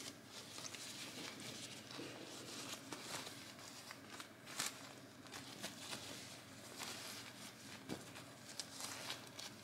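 Disposable diaper rustling and crinkling as hands fit it, with irregular small crackles, the sharpest a little before the middle.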